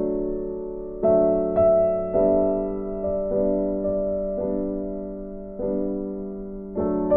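Slow, gentle solo piano background music, with a note or chord struck about once a second and left to ring and fade.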